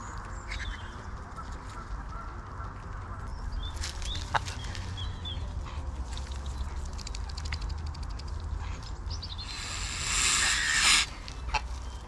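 Ducks and geese calling, with scattered short bird calls and clicks over a steady low rumble. Near the end comes a loud rush of noise lasting about a second and a half.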